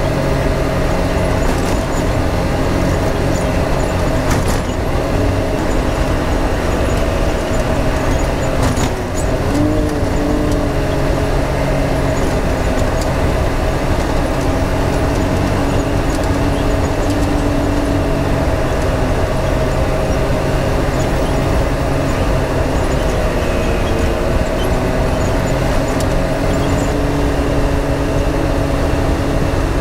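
Side-by-side UTV engine running at a steady cruise over a dirt track, under a constant bed of tyre and rattle noise. The engine note dips and picks back up about nine seconds in, and again briefly near the end, with a few light knocks from the rough ground.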